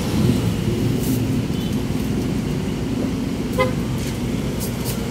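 Steady road traffic: vehicle engines running close by, with one brief high toot about three and a half seconds in.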